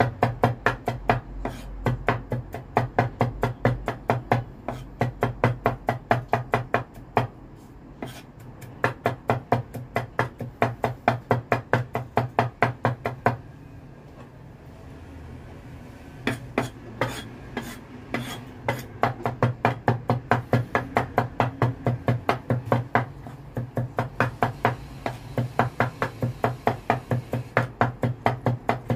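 Cleaver blade rapidly mincing garlic on a wooden chopping board, a quick run of knocks about four to five a second. The knocks stop for about two seconds near the middle while the garlic is gathered into a pile.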